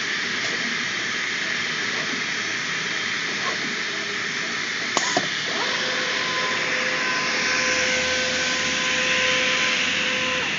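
Kongsberg flatbed cutting table running during a kiss-cutting job, a steady machine hiss of its vacuum hold-down blower. A couple of sharp clicks come about five seconds in, and a steady whine joins soon after.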